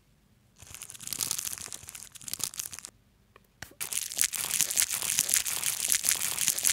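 Wrapper being torn open and crinkled by hand to unwrap a bar of soap: a first spell of rustling, a short pause about three seconds in, then a longer, denser stretch of crinkling.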